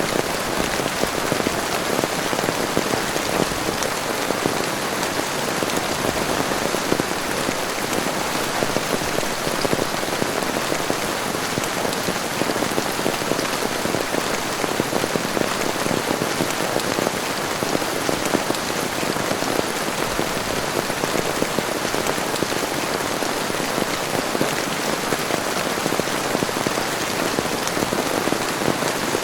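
Heavy rain falling steadily: a dense, even patter of drops with no let-up.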